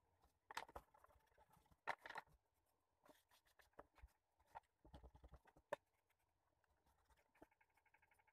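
Graphite pencil scratching on paper in short, irregular strokes while sketching, with a few light sharp taps. The strongest strokes come about half a second in and around two seconds in.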